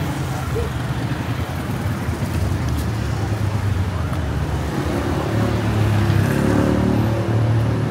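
Street traffic: motor vehicle engines running in a steady low hum, one growing a little louder about five seconds in.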